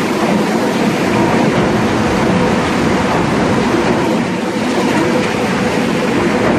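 MR-63 rubber-tyred metro train running past along the platform: a loud, steady rolling rumble with a faint steady hum in it.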